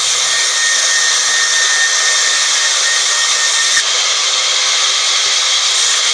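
Sawmill band saw ripping teak boards: a loud, steady hiss of blade and sawdust, with a faint thin whine through the first few seconds.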